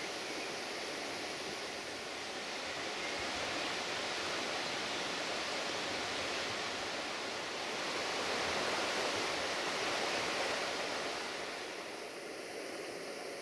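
Steady rushing of a fast river, an even hiss of water with no engine or rail sounds, swelling a little past the middle and changing tone slightly near the end.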